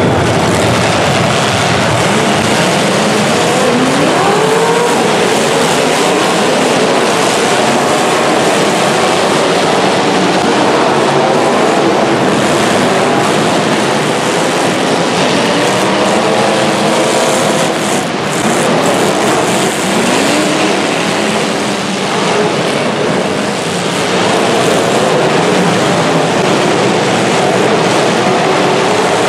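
Several demolition derby cars' engines revving hard together, pitches rising and falling, over a dense, steady wash of engine and tyre noise.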